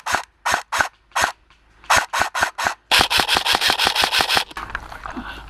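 Airsoft rifle firing close by. It fires four well-spaced single shots, then a quicker string of about five, then a full-auto burst of roughly a second and a half that stops about four and a half seconds in.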